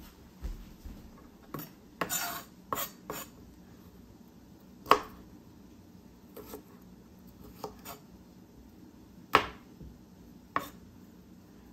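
Kitchen knife cutting broccoli on a plastic cutting board: a handful of separate knife knocks on the board, the two loudest about five seconds in and a little after nine seconds, with a cluster of smaller cuts and rustling of the stalks around two to three seconds in.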